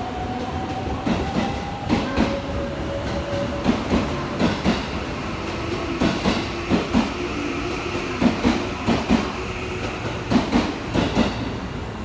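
JR West 207 series electric train accelerating out of a station. Its inverter-driven traction motors whine in tones that rise slowly and drop to a lower pitch a couple of times, over the clatter of wheels crossing rail joints.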